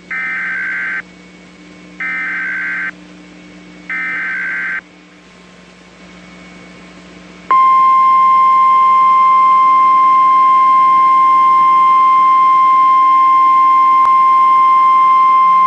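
NOAA Weather Radio Emergency Alert System signal: three short bursts of the digital SAME header, each about a second long and two seconds apart. About seven and a half seconds in, the steady single-pitch warning alarm tone starts, marking the start of an emergency alert broadcast.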